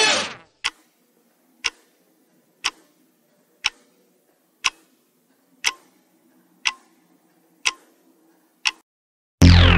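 Quiz countdown-timer sound effect: clock ticks, one per second, nine in all, over a faint low hum. A short loud electronic tone fades out at the start, and a loud sound effect with falling pitch starts just before the end.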